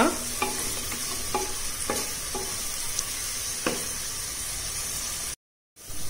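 Chopped onions frying in oil in a pressure cooker, with a steady sizzle and a few scrapes and knocks of a wooden spatula stirring them against the pot. The onions are being sautéed toward golden brown. The sound drops out for a moment near the end.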